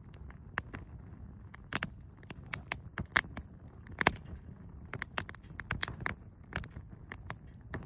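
Wood campfire crackling, with irregular sharp pops, a few a second and a couple louder ones near the middle, over a low steady rumble.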